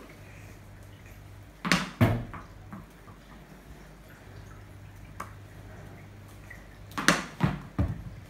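Sharp wooden knocks from a cricket bat being swung in batting practice. Two come close together about two seconds in, and three follow in quick succession near the end.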